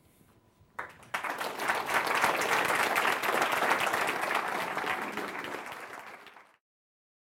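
Audience applauding, starting about a second in, thinning slightly toward the end and then cut off abruptly.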